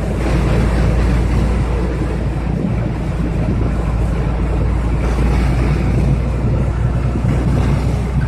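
Steady engine drone of a moving vehicle with wind rushing over the microphone, an unbroken, even noise with a strong low hum.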